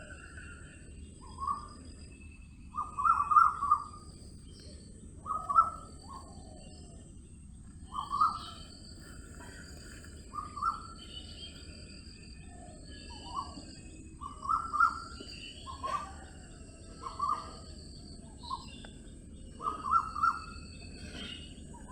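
Forest birds singing: one bird repeats a short, loud call every two seconds or so, while others twitter higher and more faintly, over a steady high hiss.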